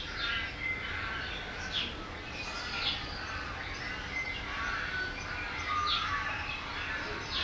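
Birdsong of many chirps and sweeping whistles from a film soundtrack, played through a theatre's speakers, over a low steady hum.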